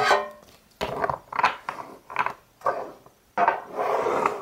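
A thick stack of Pokémon trading cards pulled out of their box and handled, making a series of short rustling scrapes and knocks, with a longer scrape near the end.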